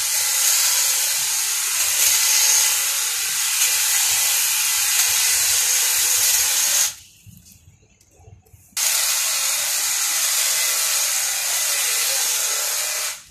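Makita hedge trimmer running as it trims a leafy hedge: a steady, high-pitched hiss-like whir. It stops abruptly about seven seconds in, starts again about two seconds later, and stops once more at the very end.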